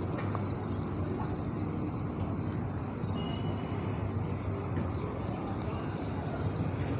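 Steady low background noise with a faint high chirping repeated several times a second, from a bird or insect, while cotton cloth is handled and turned right side out.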